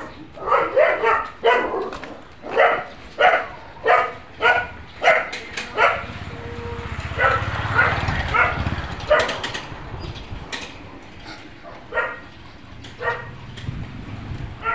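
Dogs barking, short barks about twice a second for the first half, then only now and then. A low rumbling noise swells up in the middle.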